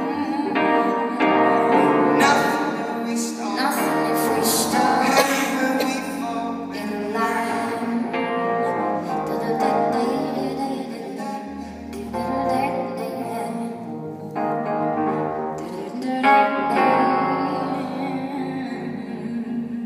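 A live pop song: singing with keyboard accompaniment, sounding in a large, echoing church hall. The music eases off near the end as the song draws to its close.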